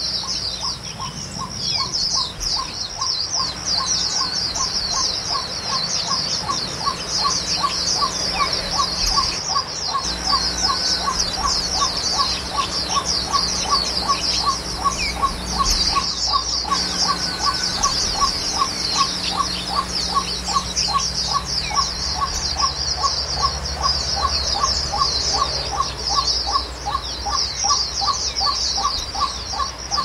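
Small songbirds chirping in a dense, continuous high-pitched chatter, over a steady series of short, lower pips repeating about two or three times a second.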